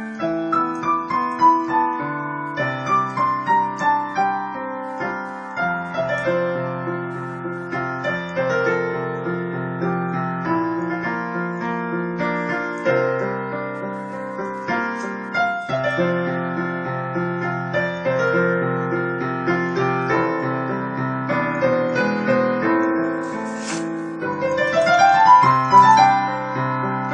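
Dynatone DPR-3160 digital piano played solo in a slow, dreamy style, with flowing arpeggios that cascade downward in pitch and a rising run near the end.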